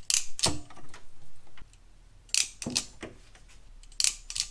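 Sharp clicks of a hand wiring tool closing and opening on stranded wire ends. They come in three quick pairs, about a second and a half apart.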